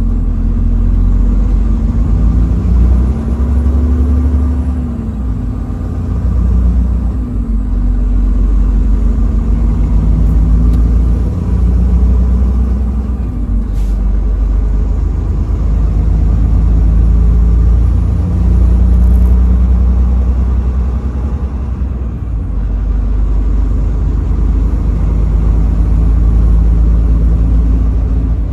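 Truck engine and road noise while driving: a steady low rumble, with the engine's pitch rising and falling now and then as its speed changes.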